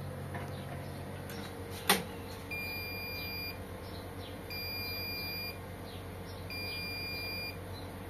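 Bosch Maxx 7 VarioPerfect washing machine giving its end-of-programme signal: three one-second beeps about a second apart. A single loud click comes just before the beeps, over a low steady hum.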